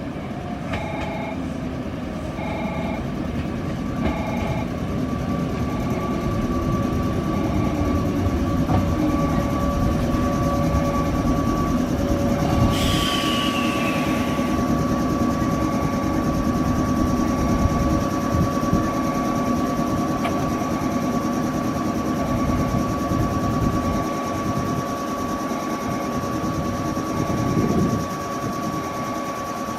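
Electric train pulling into the station and slowing, its rumble and motor sound falling in pitch, while a level-crossing bell keeps ringing in the background. About halfway through there is a short hiss with a falling squeal, likely the brakes.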